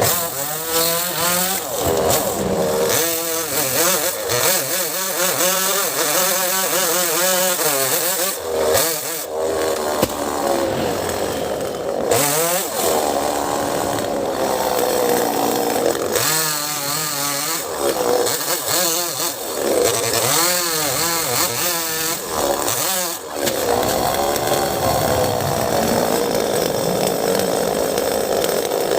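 Chainsaw engine revving up and down again and again while cutting the wood of a mango tree, with brief drops in throttle between cuts.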